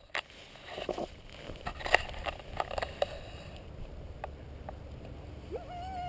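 Low wind rumble on a pole-held camera's microphone, with several sharp clicks and knocks in the first three seconds. Near the end a short rising call or whistle is heard, then held briefly.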